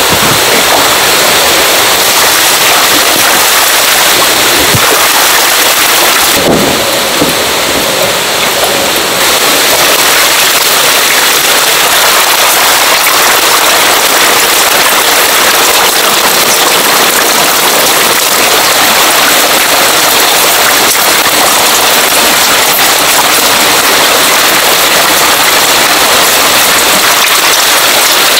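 Loud, steady rain-like splashing and churning of water in an eel tank, as a dense mass of freshwater eels writhes at the surface around lumps of paste feed.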